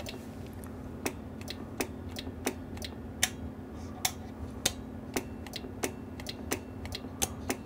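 The BMK 1x4 CB amplifier's keying relays click in and out at uneven gaps, about two clicks a second, over a steady low hum, as the radio is keyed to test the sideband delay. The delay is not working: the relays drop out at the same speed as on AM.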